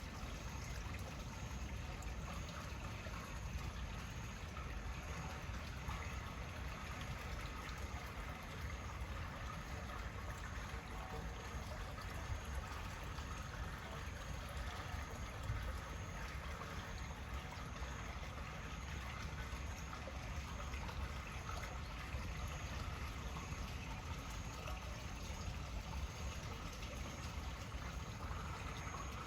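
Steady trickling and running of rainwater left over from a heavy downpour, with a low rumble underneath.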